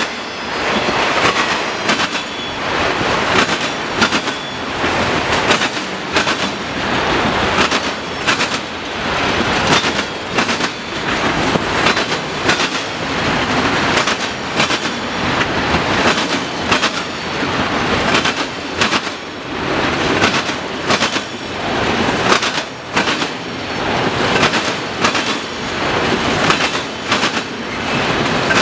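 A long freight train's cars, mostly autorack cars, rolling past, their wheels banging over a railroad diamond crossing in a loud, continuous, irregular clatter of sharp knocks.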